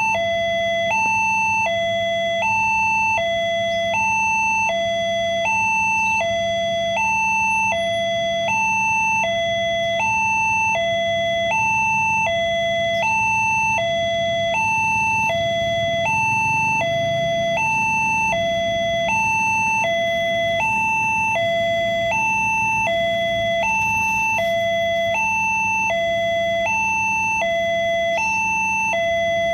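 Newly installed level-crossing alarm sounding from its horn loudspeaker: an electronic two-tone hi-lo warning that alternates between a higher and a lower tone, about one pair a second, signalling a train approaching the closed crossing.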